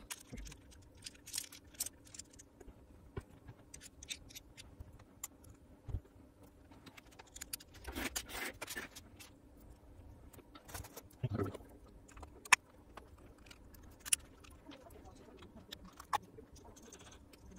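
Scattered light clicks, taps and scrapes of small metal parts and a screwdriver being handled as the planetary gearbox of a Makita DDF486 drill is greased and reassembled. There are a few sharper ticks in the second half.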